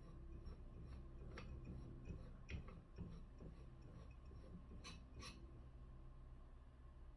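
Near silence with a few faint clicks and scrapes as a silencer is screwed onto an air rifle's threaded muzzle by hand.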